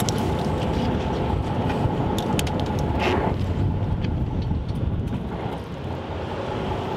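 Fishing boat's engine running with a steady low rumble, with a few light clicks over it.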